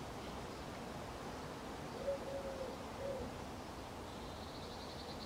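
Garden ambience with a pigeon cooing a short phrase of low notes about two seconds in. A faint, rapid high trill comes near the end.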